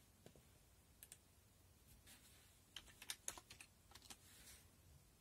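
Faint keystrokes on a computer keyboard as a login password is typed: a couple of clicks about a second in, then a quick run of keystrokes from about three to four and a half seconds.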